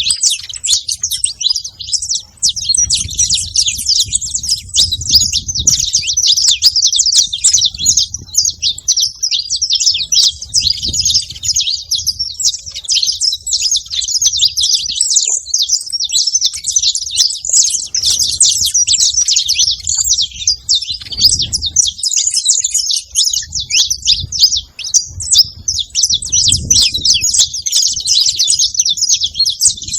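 Saffron finches chirping at a feeding spot, a dense, unbroken stream of rapid, high-pitched chirps from several birds, with an intermittent low rumble underneath.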